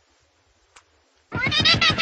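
A cat yowling: after a quiet second with one faint click, a loud, long wavering call starts just past halfway.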